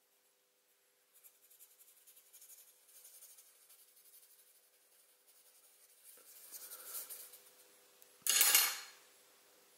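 A coin rubbed in small circles on a sketchbook page: a fine, scratchy scrape of metal on paper that comes and goes, getting louder about six seconds in. Near the end, a short, much louder handling noise is the loudest sound.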